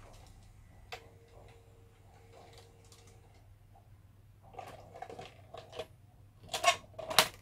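Sharp VC-300FB front-loading VHS recorder ejecting a cassette: a click and a brief steady motor hum, then mechanical clunks of the loading mechanism as the cassette comes out of the slot, and louder clicks and knocks near the end as it is taken out by hand.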